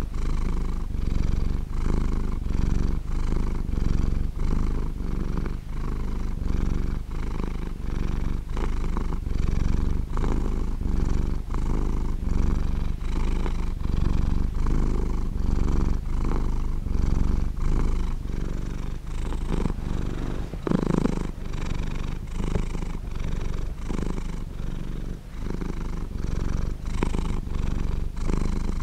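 A domestic cat purring close up, a steady low rumble that swells and eases with each breath in and out, about two pulses a second. One brief louder sound comes a little past two-thirds of the way through.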